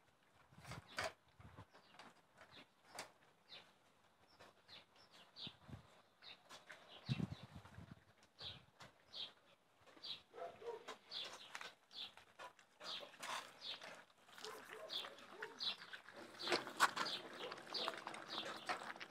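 German shepherd puppies eating from stainless steel bowls: scattered clicks and clinks of teeth and muzzles against the metal, with chewing. It grows busier and louder over the last few seconds.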